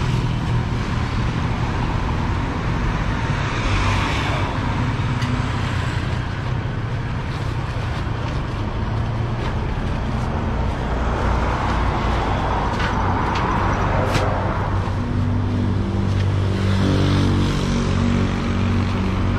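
Street traffic: vehicles passing one after another, swelling and fading over a steady low engine hum.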